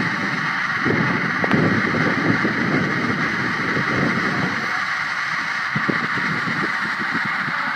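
Strong howling wind: a steady hiss with low, gusty rumbling that eases after about halfway.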